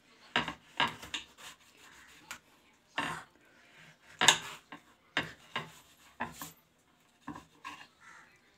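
Kitchen knife slicing a fresh red chilli into pieces on a wooden chopping board: irregular sharp knocks as the blade cuts through the skin and strikes the wood, the loudest about four seconds in.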